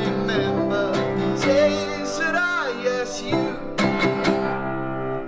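A school song played on acoustic guitar with singing. The music cuts off near the end.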